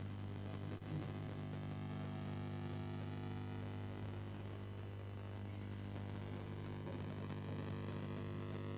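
Steady electrical mains hum, a low buzz with a ladder of even overtones, on the broadcast audio feed. A single faint click comes about a second in.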